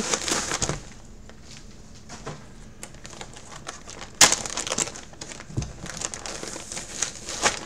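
Clear plastic zip-top bag crinkling as a football jersey inside it is handled, loudest in the first second and again over the last couple of seconds, with a single sharp click about four seconds in.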